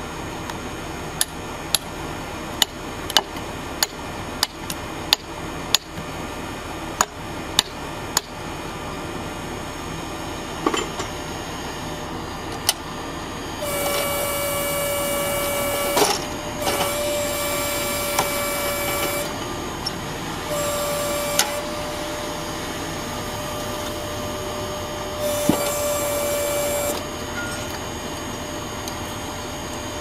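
Hydraulic log splitter running with a steady hum, its whine rising to a steady high tone with hiss four times as the ram drives through a log under load, for about two and a half seconds, two and a half, one, and one and a half. Before that comes a run of about a dozen sharp knocks, roughly one a second, in the first eight seconds.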